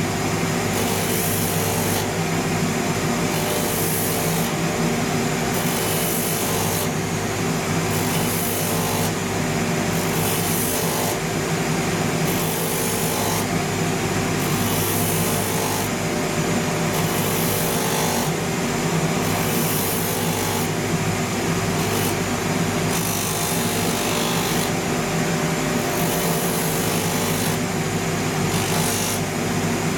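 A shoe finishing machine's motor runs steadily with a constant hum while a leather outsole is pressed against its spinning rotary sandpaper disc, scraping off the grain surface. The abrasive hiss comes and goes about once a second as the sole is worked across the disc.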